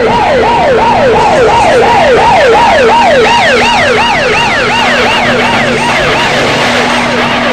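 Police car sirens yelping, each rising and falling about three times a second. A second, higher siren joins about two and a half seconds in and fades out about six seconds in, over a steady low hum.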